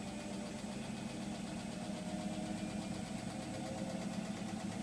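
Hotpoint washing machine on its spin cycle, the drum picking up speed with a steady motor hum, the machine shaking slightly.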